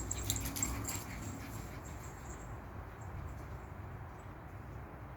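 American Bully puppy making faint noises while being handled, with clicks and rustles in the first two seconds over a steady low rumble.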